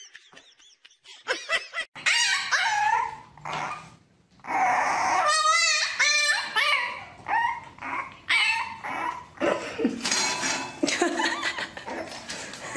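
A puppy yapping and whining in a string of high-pitched yips and whines, with a quick run of short yelps about halfway through.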